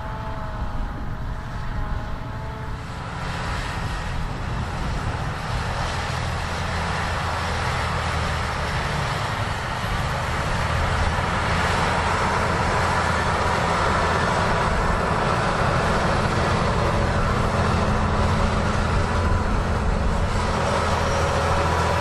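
Big Fendt tractor's six-cylinder diesel running steadily under load while pulling a soil leveller, a low engine drone under a steady rushing noise. A wavering whine is heard over it for the first three seconds or so, then fades.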